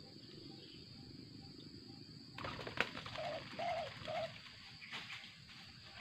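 A spotted dove (tekukur) coos three notes in a row, a little past three seconds in, over a steady high insect drone. Rustling with sharp clicks starts just before the coos.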